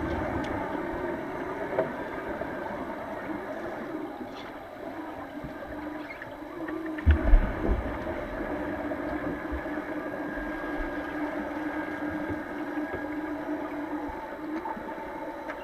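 Underwater pool ambience picked up by a submerged camera: a steady hiss and hum with wavering, whale-like tones, one of which holds steady for several seconds in the second half. A cluster of low thumps and rumble about seven seconds in, as a player moves close to the camera.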